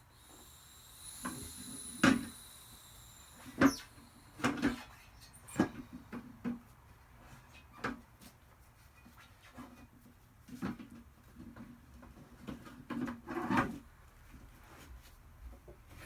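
Irregular knocks and clunks of a vintage manual bead breaker being worked against a tire and steel rim, struggling to break the tire's bead. The strikes are loudest about two seconds in and again a little later, with a cluster of clunks near the end.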